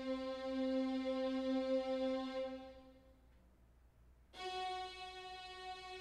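Korg Triton Extreme software synth's 'Split Strings' patch holding one sustained string note, which fades out about two and a half seconds in. After a second of near silence, a higher string note starts suddenly: the autosampler is stepping to the next note to record it.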